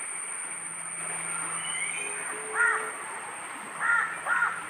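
Three short bird calls, the last two close together, over a steady high-pitched tone.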